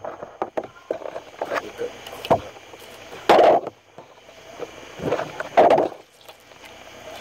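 Skin being pulled off a large catfish by hand: a series of short irregular handling and tearing sounds, the loudest two pulls about three seconds in and again near six seconds.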